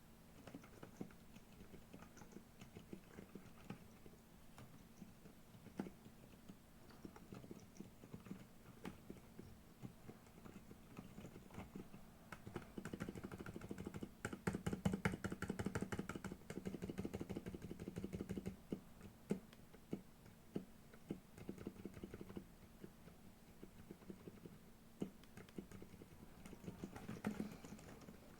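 Typing on a Redox Manuform split keyboard with Silent Green Lemon tactile 45 gf switches and XDA-profile keycaps: quiet, muted keystrokes. Scattered single key presses give way about halfway through to several seconds of fast typing, then single presses again.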